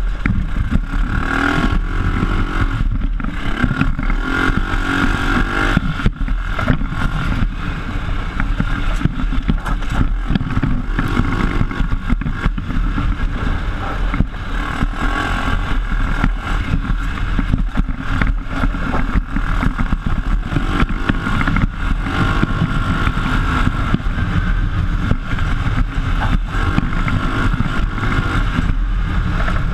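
PGO off-road buggy's engine running under way on a rough dirt track, heard from onboard, its pitch rising and falling a few times as the throttle changes over a constant heavy rumble.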